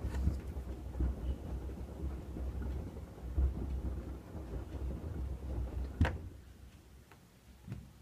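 Hoover WDYN 11746 PG8 washer-dryer drum tumbling a load of rugs and shoes through soapy rinse water: a low churning rumble with water sloshing. A single sharp knock comes about six seconds in, then the drum stops and the sound falls away.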